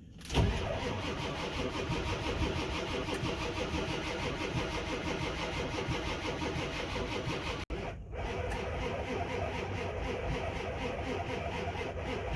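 Ford 7.3 Power Stroke diesel engine being cranked by its starter on low batteries boosted with jump packs, turning over in an even rhythm without firing, with too little battery power to start it in the cold. The cranking breaks off for a moment about seven and a half seconds in, then starts again.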